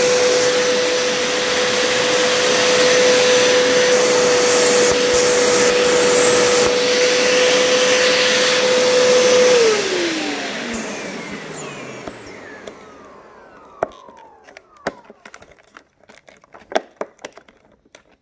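Hoover Power Scrub Deluxe carpet cleaner's suction motor running with a steady whine, drawing the last water up out of the nozzle so it doesn't drip. About halfway through it is switched off and winds down, the whine falling in pitch as it fades, followed by a few sharp plastic clicks and knocks.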